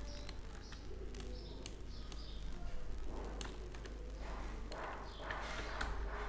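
Birds calling in the background: short high chirps, mostly in the first half. Scattered faint clicks, soft noisy bursts later on, and a steady low hum underneath.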